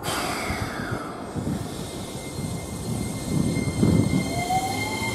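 Keikyu 1500 series electric train pulling away from the platform, its Toyo IGBT inverter starting a rising whine near the end over the rumble of the bogies.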